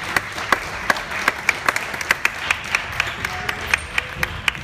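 Spectators applauding, with one pair of hands clapping close by and sharply, about four or five claps a second over the general applause.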